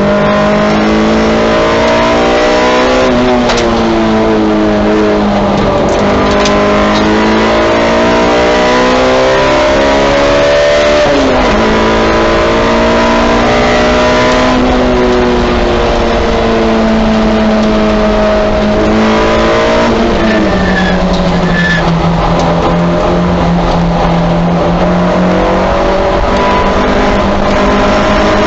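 Honda S2000 race car's four-cylinder engine heard from inside the cabin on track, its pitch climbing under full throttle and dropping abruptly several times at braking and gear changes, with a slower drop about two-thirds through. Steady tyre and wind noise runs underneath.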